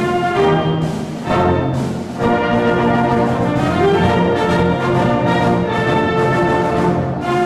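A full high school wind band playing a medley arrangement, brass to the fore, in sustained chords and melody lines, with short breaks between phrases about one and two seconds in.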